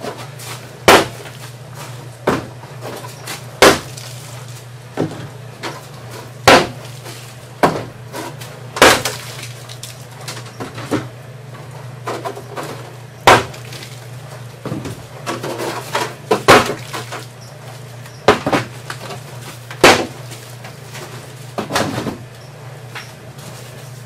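Empty concrete paver molds being taken off a stack and set down one by one on a plywood table: a sharp clack about every second or so, with lighter knocks as the molds bump against each other.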